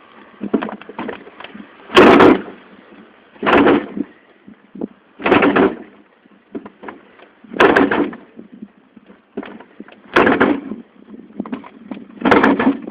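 Wind buffeting the phone's microphone in gusts: six loud blasts of rumbling noise, each about half a second long and roughly two seconds apart, with lighter buffeting between them.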